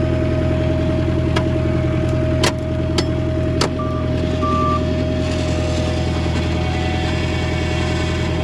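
Bobcat 743 skid steer's diesel engine running steadily with a constant whine over it, while the controls are worked. Four sharp knocks come in the first few seconds, then two short beeps.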